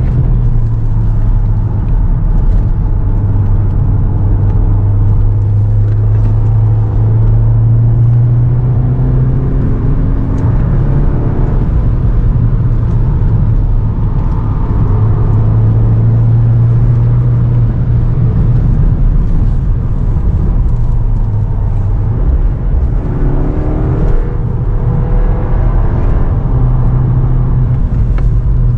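Cupra Formentor 310's turbocharged four-cylinder engine pulling hard at speed, mixed with tyre and road noise, heard from inside the cabin. The engine note climbs twice, about ten seconds in and again near the end, as the car accelerates out of corners.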